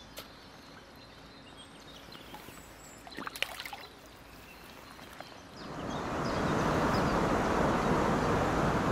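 Rushing river water, faint at first and then loud and steady from about five and a half seconds in. A short cluster of clicks comes around the middle.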